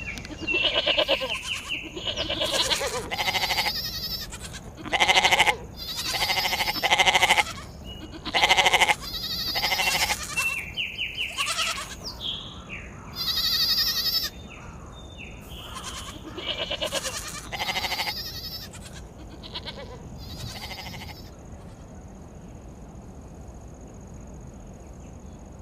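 Sheep bleating over and over: a dozen or more separate wavering calls, some overlapping, before they stop near the end and leave a faint steady hiss with a thin high tone.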